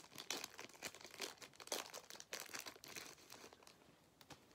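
Wrapper of a 1988 Score baseball card pack being torn open and crinkled by hand: a dense run of crackles that thins out near the end.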